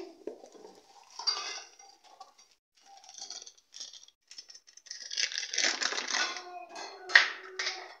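A plastic sachet of cocoa powder being pulled from its cardboard box and handled, the plastic crinkling in irregular rustles, heaviest about five to seven seconds in.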